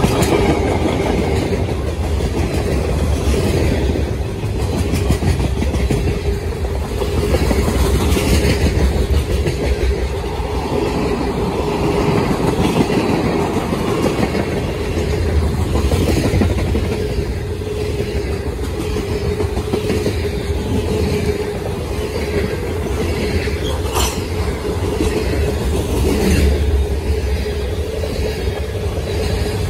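Freight cars of a manifest train rolling past close by: a steady rumble of wheels on rail, with repeated clacks as the wheels cross rail joints and a steady whine running underneath.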